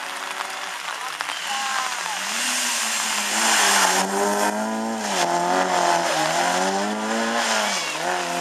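Rally car engine revving hard as the car approaches and passes close by, loudest about four seconds in. The engine note dips and climbs again three times as the driver shifts gears or lifts off.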